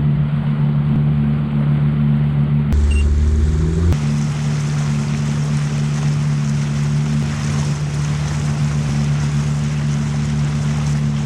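Yamaha WaveRunner personal watercraft engine running steadily at low speed, with water rushing along the hull. The engine note shifts briefly about three seconds in, then settles back to the same steady hum.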